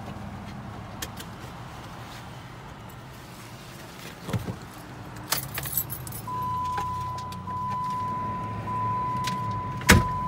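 Clicks and rattles of someone rummaging inside an idling car for papers, over a low engine hum. About six seconds in a steady electronic tone starts and keeps going, and near the end comes one sharp, loud click.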